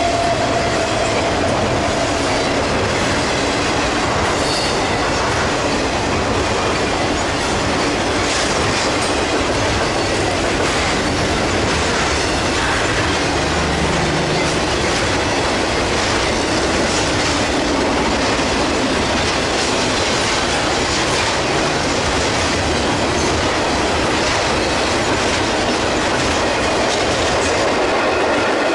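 Freight cars of a long intermodal train, trailers riding on flatcars, rolling past: loud steady noise of steel wheels on the rails, with a faint wheel squeal at the start and another, higher one near the end.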